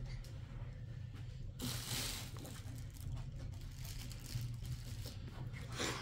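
Rustling and scraping from hands working in a large plastic tub, growing rougher about a second and a half in, over a steady low hum.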